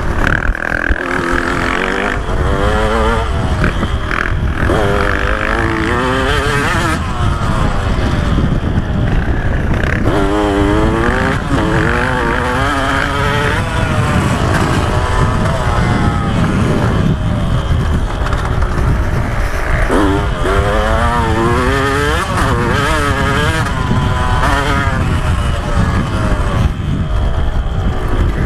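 2015 KTM 125 SX two-stroke single-cylinder engine ridden hard on a motocross track, its pitch climbing and dropping back again and again as the rider accelerates, shifts and rolls off, over a constant low rumble.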